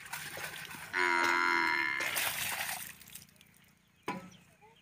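One of the tethered water buffaloes or cattle moos once, a single call of about a second starting about a second in, trailing off into a breathy rush. This is typical evening calling for fodder, which the farmer puts down to hunger. A short knock follows near the end.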